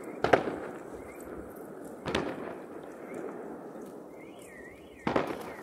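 Three sharp bangs, two to three seconds apart, each with a short echoing tail; the last is the loudest. Between the second and third, a faint warbling whistle rises and falls.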